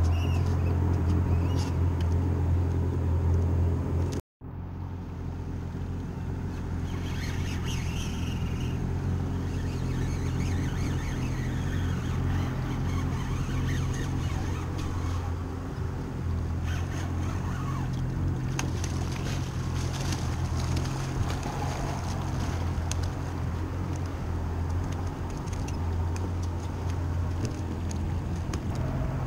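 Yamaha 190 FSH jet boat's inboard engine idling, a steady low hum. The sound drops out for a moment about four seconds in.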